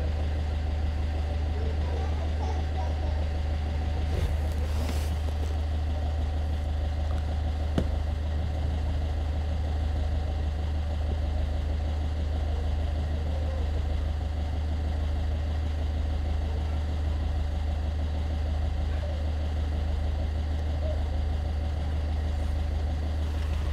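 Car subwoofer playing a steady low bass test tone, the amplifier driven hard while its gain is set by AC voltage. A single click about eight seconds in.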